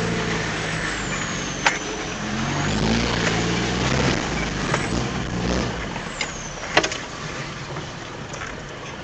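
Mitsubishi L200 pickup's engine running inside the cab at low speed on a rough dirt track, its revs rising and falling. There are two sharp knocks, one early and one near the end, as the truck jolts over the ruts.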